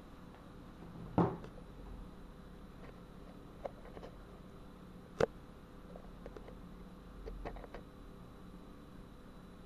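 Knocks and taps of a tablet being handled and set down on a wooden desk: a dull knock about a second in, a sharper click about five seconds in, and a few light ticks between.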